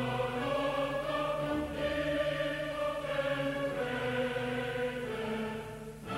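Choral music: voices singing long held chords that change every second or two, with a short dip in loudness near the end.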